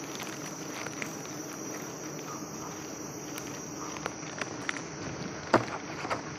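A steady high insect trill runs throughout. From about four seconds in, sharp snaps and rustles of leaves and twigs sound close by, the loudest a crack about five and a half seconds in.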